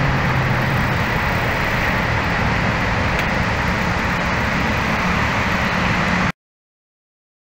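Surf breaking on a sandy beach: a loud, steady rushing noise that cuts off suddenly about six seconds in.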